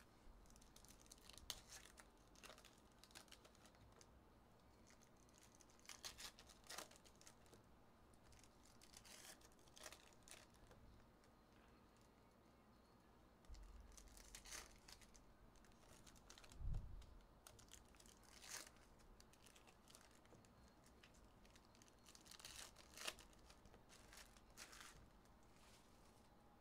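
Faint tearing and crinkling of trading-card pack wrappers as packs are torn open, with scattered light rustles and clicks of cards being handled. There is one soft low thump about two-thirds of the way through.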